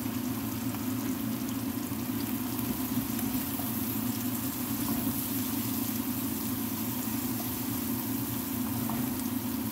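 Chopped onion, garlic and tomato sizzling in oil in a frying pan as they are stirred with a wooden spatula, over a steady low hum.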